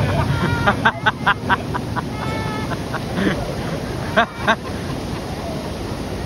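People laughing in short runs of 'ha-ha' bursts, with a couple of louder whoops a little after four seconds, over the steady rush of river water pouring down a weir.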